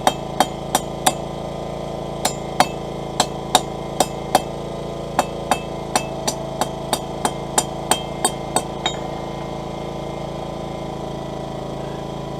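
Hammer striking a hot plain-steel bar on an anvil: about twenty light, ringing taps in irregular runs as the bar is rolled to round its tip. The taps stop about nine seconds in, leaving a steady hum.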